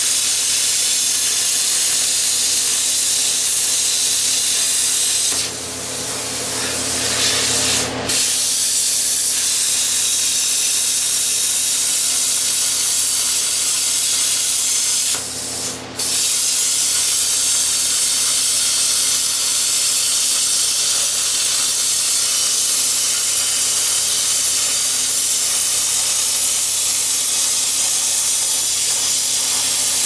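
Handheld plasma cutter cutting thin steel plate freehand: a loud, steady hiss of the arc and air, with a steady hum underneath. The hiss breaks off twice, for a couple of seconds about six seconds in and briefly around fifteen seconds.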